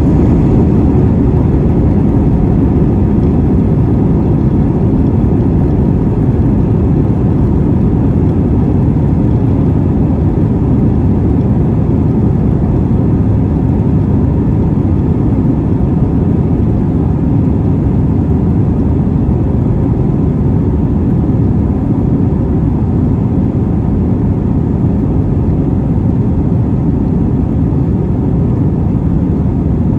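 Cabin noise of an Airbus A321 taxiing: a steady low rumble from the jet engines at taxi power, with no build-up to takeoff thrust, and a single small knock about halfway through.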